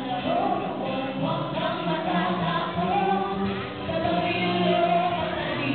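A man and two women singing together into handheld microphones, amplified, with musical accompaniment; the voices hold long notes.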